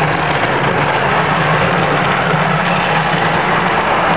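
OO gauge model diesel train running past close by: a steady hum under an even rushing noise.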